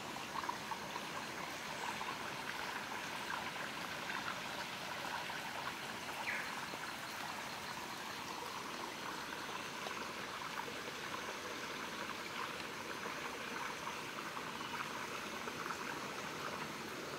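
Steady rush of running water from a forest stream, with a short rising whistle about six seconds in.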